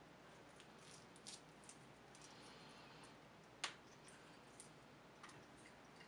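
Faint clicks and small crunches of an African grey parrot nibbling a piece of food held in its foot, with one sharper click about three and a half seconds in.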